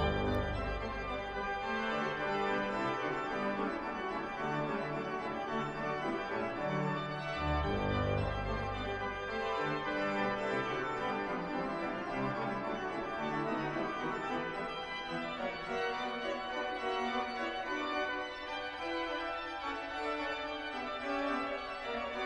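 Organ postlude: full held chords, with deep pedal bass notes near the start and again about eight seconds in.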